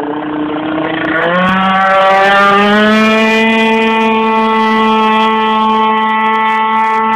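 Scooter engine at full throttle: its pitch climbs quickly about a second in, then holds at a high, steady note.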